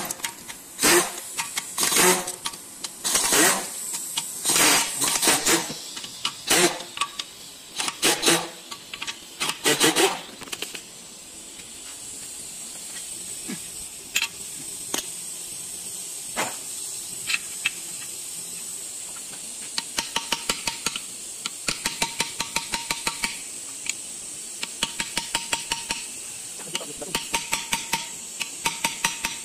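Impact wrench on the oil pan bolts of a Kia Cerato engine, firing a string of short bursts through the first ten seconds or so. A quieter stretch follows, then runs of rapid clicking near the end.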